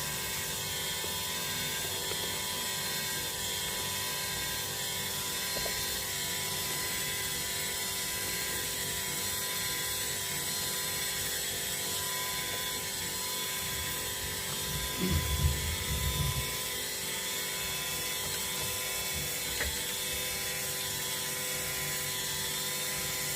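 Pultra 1590 lathe running steadily under power feed during a turning cut, a continuous mechanical whir with several constant tones. A brief low thud about two-thirds of the way through.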